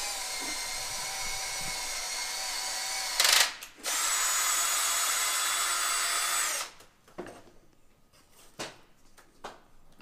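Makita cordless drill running in two steady whining bursts, each about three seconds, with a short break and a click between them. It stops abruptly about two-thirds of the way through, and a few light handling clicks follow.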